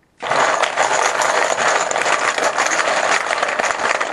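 Draw chips being shaken together, a dense steady clatter of many small clicks that starts just after the beginning.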